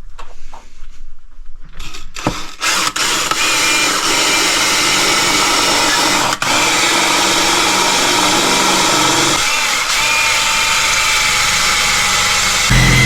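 Power drill starting about two seconds in and running steadily under load, drilling into a fire safe to open it; its tone shifts deeper near the end.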